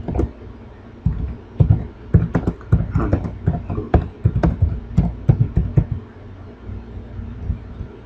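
Typing on a computer keyboard: a run of irregular keystroke clicks, each with a dull low thud, that thins out about six seconds in.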